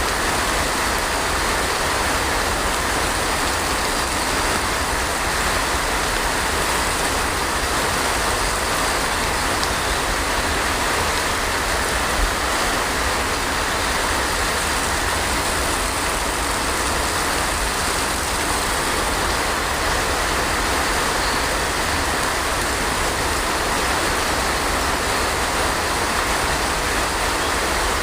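Steady heavy rain: an even, unbroken hiss with a low rumble underneath.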